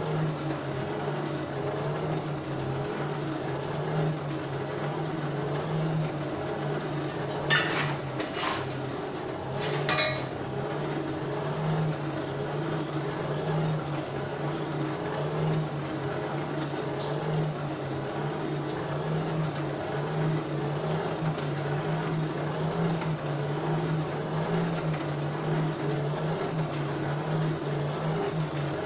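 Forge blower running steadily, blowing air through the fire while the iron heats to welding heat. A few sharp metal clinks come about a third of the way through.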